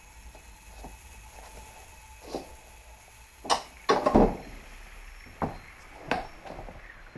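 Metal equipment cases being handled: lids and boxes knocked and set down in a few sharp clatters, the loudest cluster about four seconds in, over a low steady hum.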